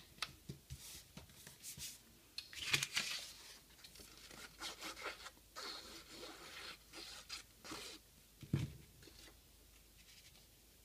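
Construction paper handled at close range: a sheet rustling and scraping as it is turned over and glued, with a louder rustle about three seconds in and a soft thump later on.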